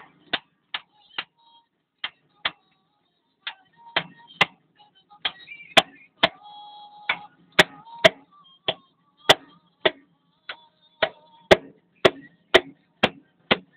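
Hand tools clicking and tapping against metal on a Caterpillar 950F loader's diesel engine while the injection pump is being removed: sharp single clicks, irregularly spaced, about one to three a second.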